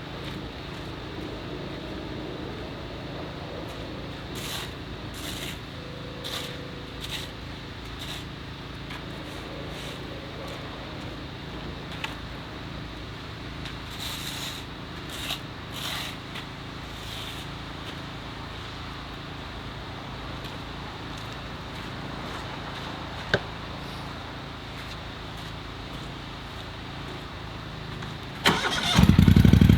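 A motor vehicle engine running steadily at a low level, with a few faint clicks. Near the end a much louder engine sound starts abruptly and keeps running.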